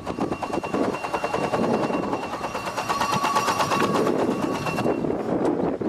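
An engine running fast: a rapid, even rattle with a steady whine over it, which stops about five seconds in.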